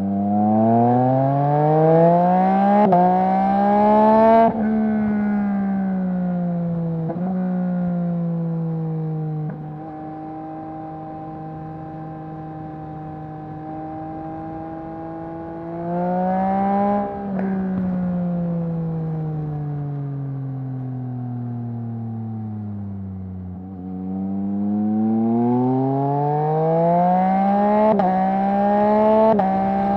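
2021 Yamaha MT-09's inline-three engine through a Mivv full-system exhaust, accelerating hard with a string of quick upshifts, each a brief break in the rising engine note. It then cruises at a steady pitch, revs up briefly, falls away as the bike slows, and pulls up through the gears again near the end.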